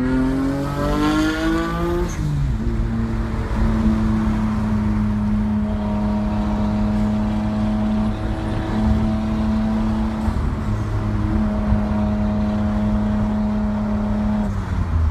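Straight-piped Nissan Skyline GT-R R32's RB26DETT twin-turbo straight-six, heard from inside the cabin: the revs climb for about two seconds, drop sharply, then settle into a steady cruising drone that dips again near the end.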